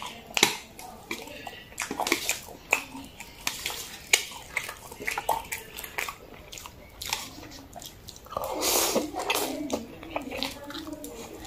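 Close-miked wet chewing and lip-smacking on saucy noodles, with a run of sharp clicks, and a longer slurp of noodles about two thirds of the way through.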